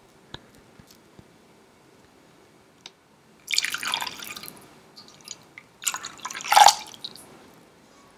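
Water poured into a saucepan holding honey, splashing in two pours about three and a half and six seconds in, the second louder. A few faint drips come before it.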